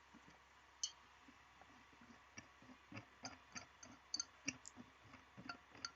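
Faint metallic clicks and clinks of a bearing puller being handled and fitted onto a ceiling fan's bearing, one sharper click about a second in and a quicker run of small clinks over the second half.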